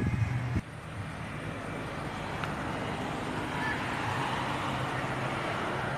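Background music stops abruptly about half a second in, giving way to steady outdoor noise with a faint low hum.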